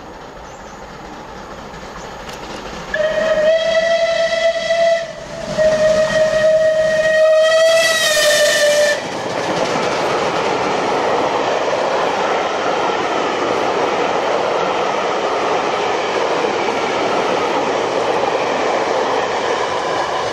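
Steam locomotive whistle sounding two blasts, the second longer, then the steady running noise of LMS Coronation Class 4-6-2 No. 46233 Duchess of Sutherland approaching and passing with its train.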